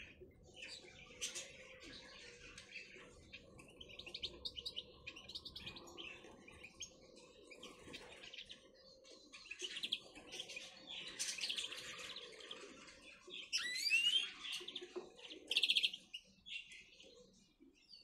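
Canaries and other small finches chirping and twittering in short scattered calls, with a couple of quick rising whistled notes and a brief fast trill near the end.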